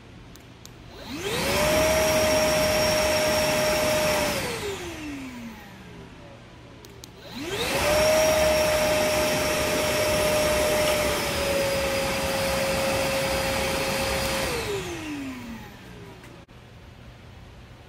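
Milwaukee M18 Fuel cordless wet/dry shop vac switched on and off twice by a wireless remote relay, each start preceded by a faint click. Each time the motor spins up to a steady whine, runs for about three seconds the first time and about seven the second, then winds down with a falling pitch.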